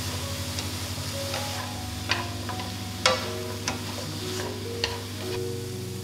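Wooden chopsticks tapping and scraping a nonstick frying pan as julienned radish is stir-fried, with several sharp clicks over a light sizzle.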